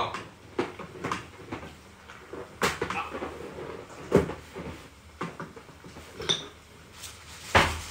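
Wooden spoon knocking and scraping against a stainless steel pot as soup is stirred: a scattering of separate knocks and clicks, the loudest near the end.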